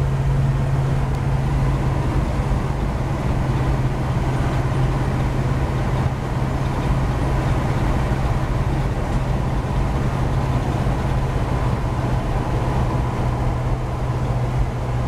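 Cab of a 1949 GMC pickup with a small-block Chevy 350 V8 swap, cruising steadily: an even engine drone with road and wind noise. The sound holds steady throughout.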